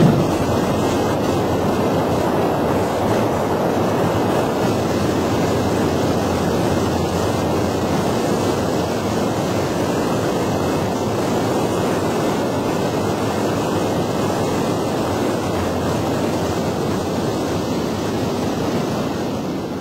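Steady rushing wind and road noise from a vehicle driving through a road tunnel, with no clear engine note.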